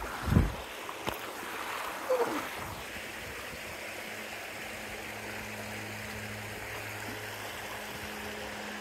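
Creek water running steadily, with a couple of low thumps near the start and a short falling whine about two seconds in. A low steady hum joins about halfway through.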